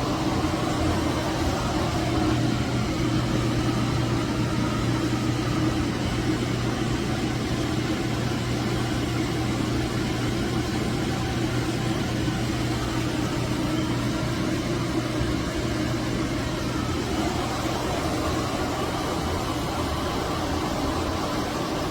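VIVOSUN AeroWave E6 six-inch clip fan running steadily: a constant rush of air over a low motor hum.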